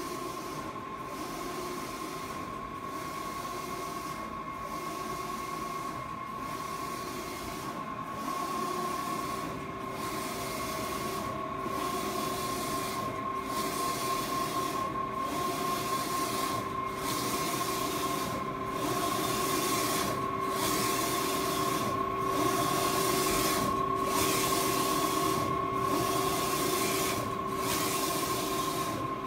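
Garros RT-1801 wide-format inkjet printer printing. The print-head carriage whirs across the media with a steady whine, and the whir drops out briefly about every 1.8 seconds as the carriage reverses at the end of each pass.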